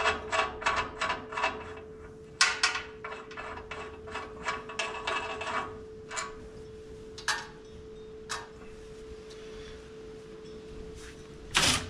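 Metal hand tools clicking as a part is taken off the lower ball joint stud of a control arm: two runs of quick sharp clicks, then a few single clicks and one louder knock near the end. A faint steady hum runs underneath.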